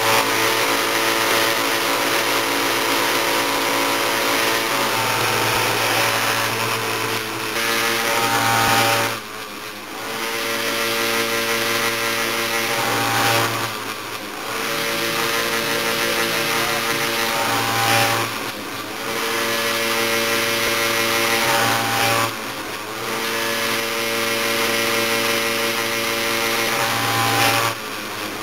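Electric bench-mounted chainsaw-chain grinder running steadily, its wheel grinding the chain's teeth, with a brief dip in the sound about every four to five seconds.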